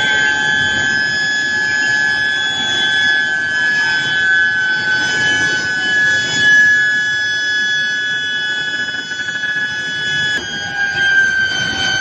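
Steel billet induction heater whining with a steady high-pitched tone and its overtones, over the rumble of the roller line. A little past ten seconds in the tone shifts abruptly, then sinks slowly in pitch.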